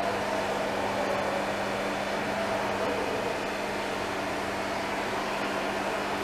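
Steady mechanical hum with a constant low tone and an even hiss, unchanging throughout.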